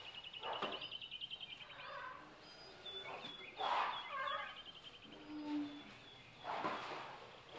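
Wild birds calling: a fast rattling trill, heard twice, among other short whistled notes. Three short noisy bursts break in, the loudest about halfway through.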